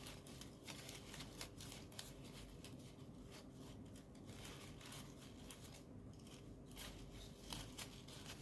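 Faint rustling and light clicks of folded origami paper units being handled and slotted together, scattered irregularly, over a faint steady hum.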